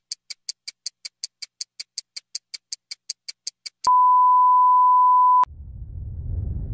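Rapid ticking of a countdown-clock sound effect, about six ticks a second, that stops nearly four seconds in. It is followed by a loud, steady 1 kHz test-tone beep of about a second and a half, the tone that goes with colour bars, which cuts off abruptly. A low rumble then starts and swells near the end.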